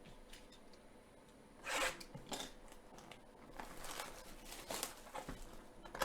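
Trading-card packaging being torn and crinkled open: a short scratchy rip about two seconds in, then a run of quick tearing and rustling sounds through the second half.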